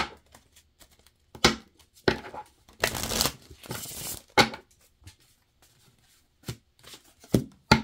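Tarot cards being handled: shuffled, with two short rustling shuffles around the middle, and cards slapped down in a string of sharp snaps.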